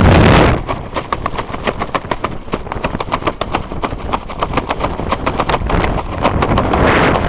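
Rushing wind on a helmet-mounted intercom microphone stops abruptly about half a second in. Fast, irregular crackling ticks follow, with a brief swell of wind near the end.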